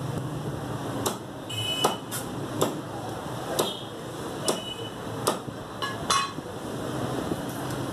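Meat cleaver chopping through a strip of mutton ribs on a round wooden chopping block: about seven sharp chops, roughly one every second.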